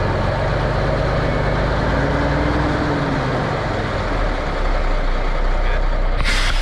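1974 Kenworth log truck's diesel engine running steadily, its pitch shifting a little partway through. A short burst of hiss comes near the end.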